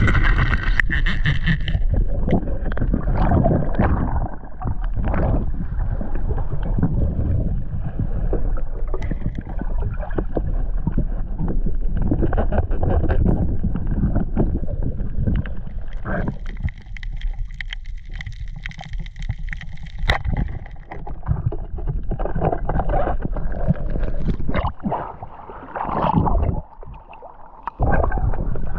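Muffled water swishing and gurgling around an underwater camera during a spearfishing dive, with many scattered knocks and clicks. It drops away briefly twice in the second half, each time for a couple of seconds.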